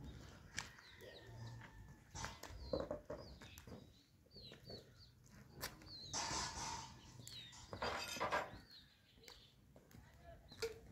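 Chickens clucking, with many short high chirps and two louder noisy bursts past the middle.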